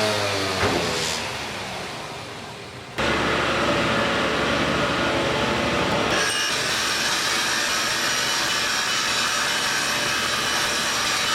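A motor winds down with a falling pitch and stops with a click. About three seconds in, a power tool working wood starts abruptly with a loud, steady rasping noise that carries on, and a higher whine joins it about six seconds in.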